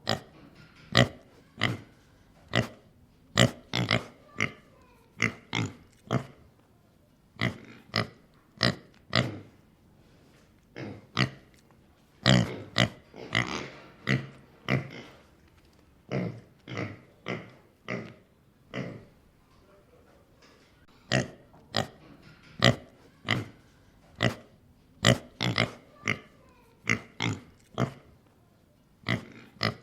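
A pig snorting: short, sharp snorts, often two or three in quick succession, with brief pauses between, and a denser run of snorts about twelve seconds in.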